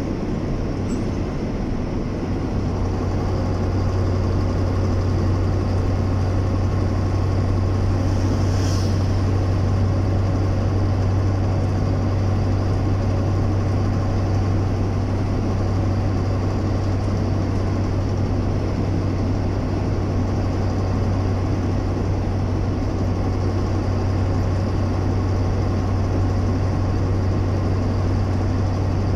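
Vehicle engine and tyre noise heard from inside a moving car: a steady low drone with constant road rumble.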